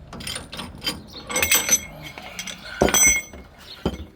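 Hand wrench working the forcing screw of a ball joint press while a new lower ball joint is pressed into the control arm. It gives a string of clicks and ringing metal clinks, the loudest twice, about a second and a half in and again near three seconds.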